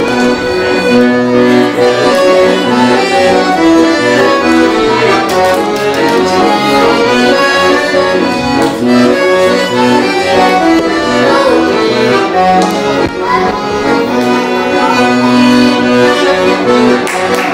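Accordion playing a lively tune of sustained chords and melody notes without pause.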